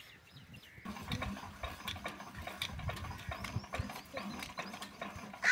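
Irregular mechanical clicking and knocking, like a ratchet or gears, from the drilling rig's diesel engine as it is worked on by hand. The engine is not running. The clatter starts about a second in, with a few faint bird chirps among it.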